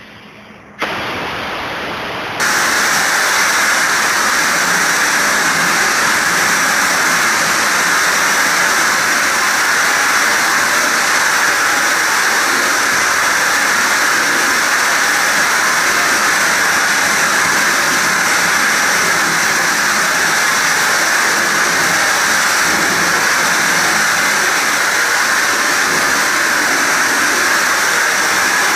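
Air-driven cartridge spray gun hissing steadily as it atomises hybrid polyurea bed liner onto a truck bed, driven by compressed air from the hose. The hiss starts about a second in and gets louder a moment later, then holds steady.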